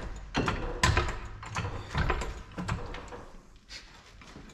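Hand tools knocking and clicking against trailer leaf-spring suspension hardware: a run of irregular sharp knocks over the first few seconds, growing sparser and quieter near the end.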